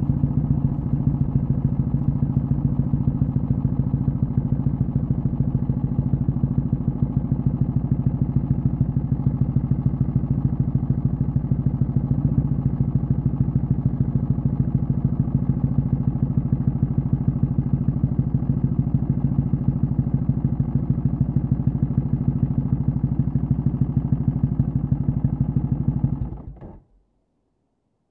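Kawasaki W650 vertical-twin engine idling steadily through a short stainless Cabton muffler, an even, fast-pulsing exhaust note. It stops near the end.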